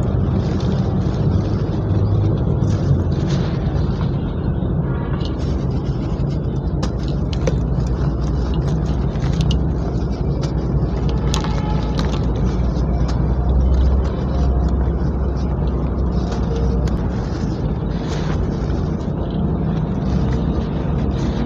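Dry gritty cement crumbled in the hands, with grit and powder sifting down into a steel tub: scattered crunches and crackles over a steady low rumble.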